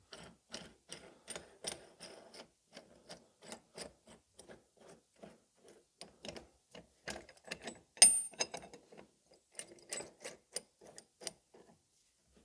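Hand ratchet clicking in repeated strokes, a few clicks a second, as it tightens the nut on a wheel-bearing puller's threaded rod to draw the tool snug against the knuckle. About eight seconds in there is one louder metallic clink with a short ring.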